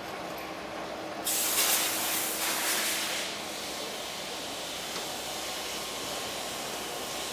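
A loud hiss of compressed air starts about a second in and lasts about two seconds, then drops back to a steady background rush of shop air.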